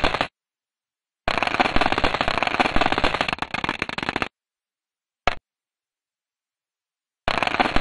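Crackling, static-like space sound made audible from spacecraft radio data: dense fast clicks over a hiss. It plays in separate bursts cut by dead silence: a short burst at the start, a three-second stretch from about a second in, a brief blip around five seconds, and another burst near the end.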